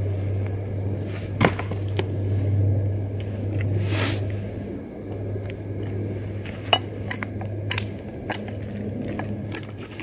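Large fixed-blade knife chopping into a wooden pole, with separate sharp knocks. The loudest knocks come about one and a half seconds in and about seven seconds in, followed by a quicker run of lighter strikes near the end, over a steady low hum.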